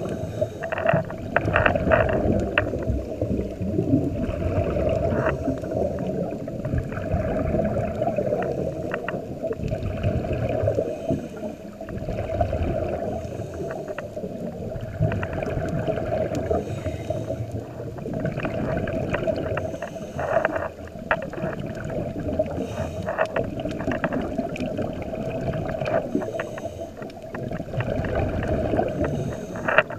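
Scuba diver breathing through a regulator, heard underwater through a camera housing: a muffled low rush with gurgling bursts of exhaled bubbles every few seconds.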